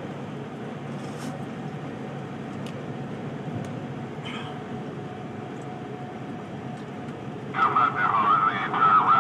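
Steady road and engine noise inside a moving vehicle's cabin at highway speed. Near the end, a louder, wavering, voice-like sound comes in over it.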